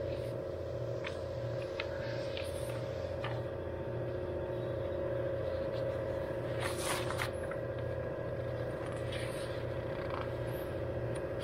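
A steady machine hum that does not change, with a few light clicks of handling and a short rustle about seven seconds in.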